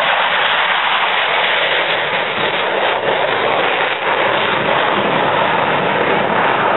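Fighter jet taking off and climbing away, its engines at takeoff power: a loud, steady rush of jet noise.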